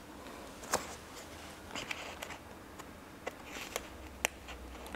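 Quiet desk handling of scissors, paper and washi tape, with about half a dozen small, sharp clicks and snips scattered through it.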